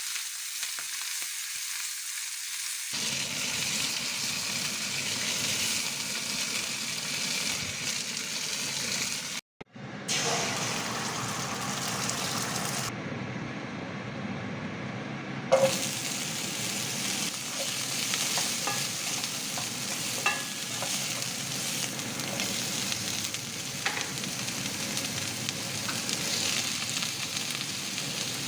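Food sizzling and frying in a hot pan while it is stir-fried. A few sharp knocks of the utensil against the pan come through in the second half, and the sound drops out briefly about a third of the way in.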